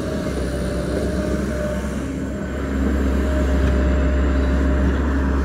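XCMG XE135B crawler excavator's diesel engine and hydraulics running under load as the machine digs and swings, a steady low hum with a thin whine over it, growing louder about halfway through.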